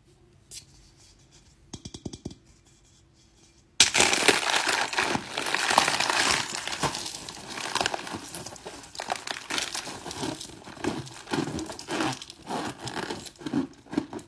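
Crinkly material being crumpled and handled: dense crackling full of small clicks that starts suddenly about four seconds in, after a nearly quiet stretch with a few faint clicks.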